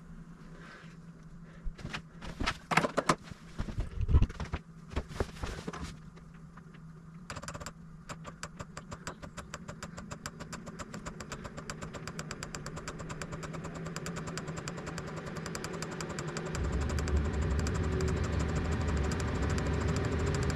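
Diesel air heater starting up, heard sped up: a few loud irregular knocks, then from about a third of the way in the fuel pump's rapid, even ticking over a fan hiss that grows steadily louder. Near the end a deep rumble joins as the burner lights and combustion builds.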